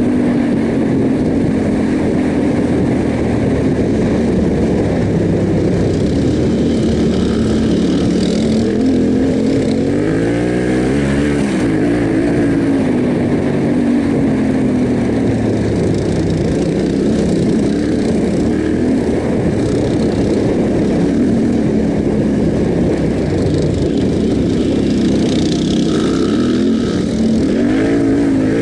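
Yamaha Ténéré 700's parallel-twin engine running under way, its pitch rising and falling with the throttle, with a sharp rev-up about ten seconds in and another near the end.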